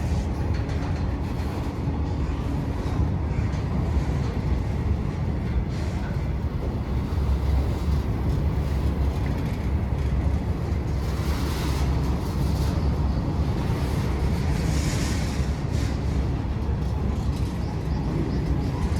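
A train running through a railway station: a steady, heavy low rumble of the rolling stock, with a brighter hiss rising briefly twice, about eleven and fifteen seconds in.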